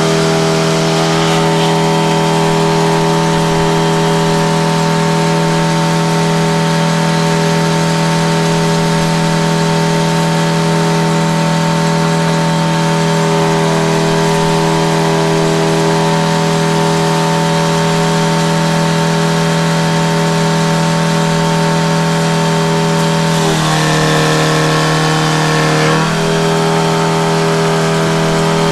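A machine's engine running at a steady speed, with its pitch dipping briefly about twenty-four seconds in, as if under load.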